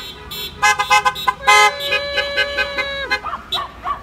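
Car horns honking from cars driving past in a parade: a run of short toots, then one long honk lasting about a second and a half.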